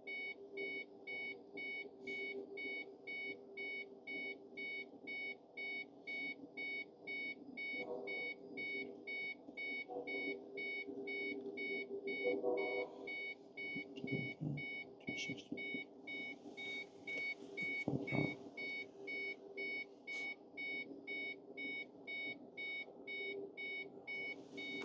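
Electronic warning chime beeping steadily, about two to three times a second, over a low steady hum, with a few soft clicks scattered through it.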